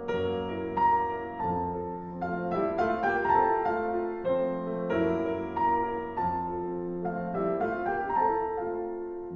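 Background piano music: a melody of single notes struck one after another.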